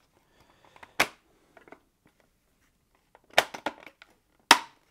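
Sharp plastic clicks as the display PCB is pressed home into the clips of a Samsung ecobubble washing machine's control panel: one about a second in, a short run of clicks after three seconds, and a loud snap near the end.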